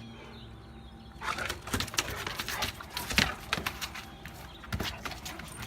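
Two Cane Corso dogs play-wrestling: rapid scuffling and clattering of paws and bodies, starting about a second in and easing briefly near the end before picking up again.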